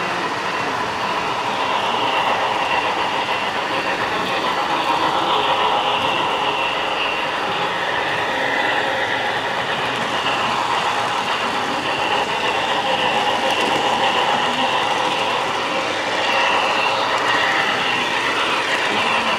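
HO scale model train running on the layout track: a steady rolling clatter of small wheels on rail.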